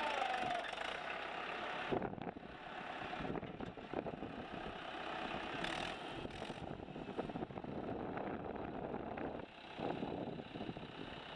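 Mahindra 475 DI tractor's diesel engine running steadily while its hydraulics tip up the loaded trolley, with a few knocks and clunks along the way.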